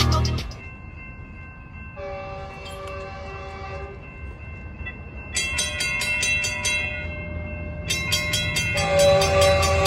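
Approaching passenger train's air horn sounding three blasts of a steady multi-note chord, starting about two seconds in, over a low rumble that grows louder as the train nears. A burst of electronic intro music cuts off in the first half-second.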